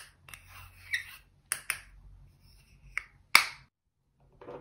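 Sharp clicks and taps of a plastic eyeshadow compact and a small spatula being handled, about half a dozen, the loudest about three and a half seconds in, followed by a softer, duller knock near the end.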